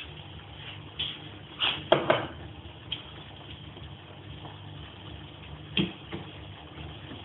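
Pots and pans on a stovetop, with a few light clinks and knocks of pan and utensil over a steady low hum. The loudest knocks come about two seconds in and again late on.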